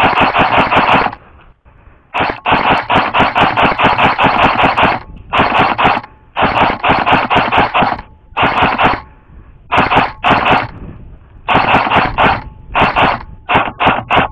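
Airsoft rifle firing on full-auto in a series of bursts of rapid, evenly spaced shots, the longest about three seconds, the last few short and quick.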